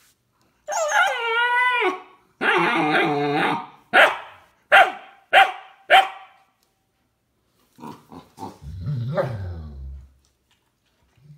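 A puppy scolding with a run of vocal complaints: a wavering, howl-like whine, a longer rough bark, four short sharp barks about half a second apart, then a low growl falling in pitch near the end.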